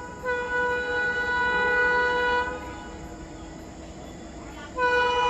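Locomotive horn of an approaching train sounding in long blasts: a steady single-pitched blast that stops about two and a half seconds in, a quieter stretch of train noise, then the horn sounds again near the end.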